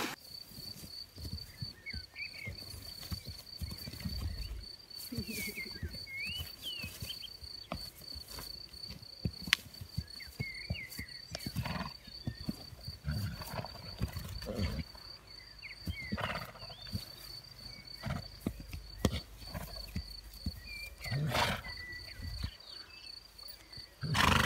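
Summer pasture ambience: a steady, pulsing insect buzz, scattered bird chirps and a low rumble of wind on the microphone, with a couple of louder noises near the end.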